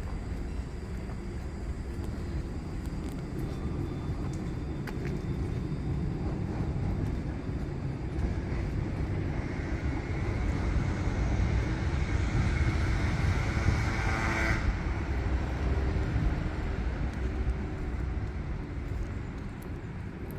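Street traffic rumbling steadily, with a passing vehicle's tyre noise swelling through the middle and cutting off suddenly about two-thirds of the way in.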